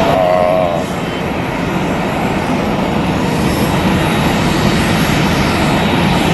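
Jet airliner's engines running with a loud, steady roar.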